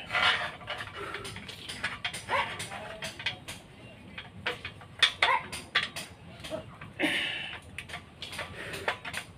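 Irregular sharp clicks and knocks, repeated many times, with a few short rising calls in between.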